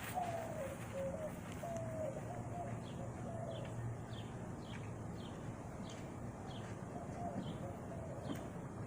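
Birds calling outdoors: a low wavering cooing call in the first couple of seconds, then a small bird's short falling chirps repeating every half second or so, over a faint low hum.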